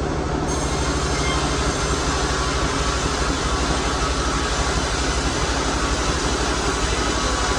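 Sawmill machinery running steadily: a continuous mechanical whir over a fast, low pulsing hum.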